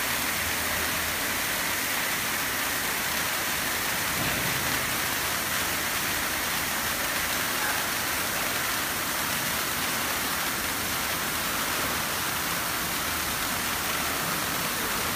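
Three colored pyrotechnic fountains burning together with a steady, even hiss of spraying sparks.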